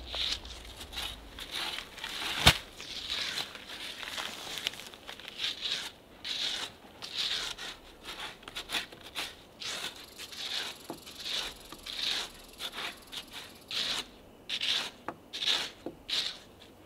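Shovel digging and scraping into stony ground in repeated strokes, about one or two a second, with one sharp knock about two and a half seconds in.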